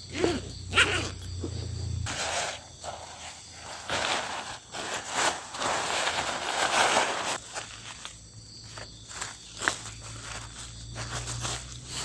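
Footsteps and rustling through forest undergrowth, irregular scuffs and crunches of leaves and twigs.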